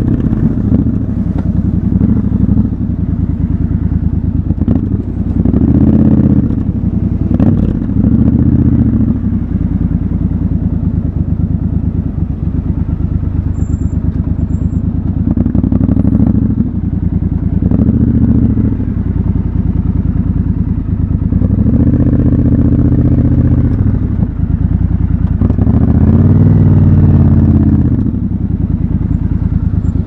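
Triumph Scrambler 1200 XC's 1200 cc parallel-twin engine running at low speed while filtering through stopped traffic, with about seven short openings of the throttle, each a swell in loudness and pitch lasting a second or two before easing back.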